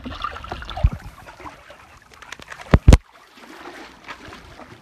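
Swimming-pool water splashing and sloshing as an animal swims, with a few heavy thumps, two of them close together just past the middle.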